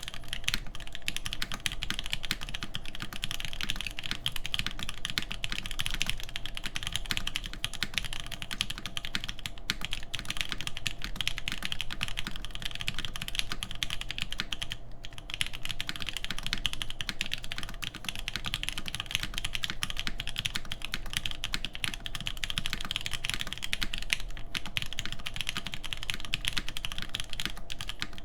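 Fast, continuous typing on a Perry IU TKL mechanical keyboard with an aluminum full plate, GMK keycaps and 43studio Popu switches lubed with 205g0: a dense stream of keystroke clicks, with a brief pause about halfway through.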